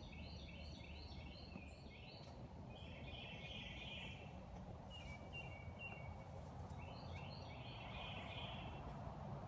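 Songbirds singing: several phrases of quick, high chirps, over a steady low background rumble.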